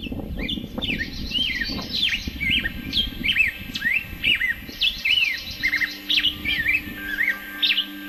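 A songbird singing a rapid string of short, sweeping whistled notes that rise and fall in pitch. A low rushing noise under it in the first half fades out about five seconds in, and low sustained music notes come in soon after.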